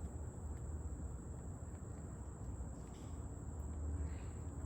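Steady, high-pitched insect drone outdoors, over a low rumble.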